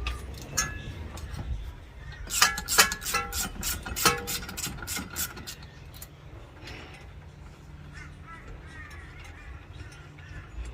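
Socket ratchet clicking with sharp metal clinks, undoing a brake caliper bracket bolt; the clicks and clinks bunch together between about two and five seconds in, then it goes quieter.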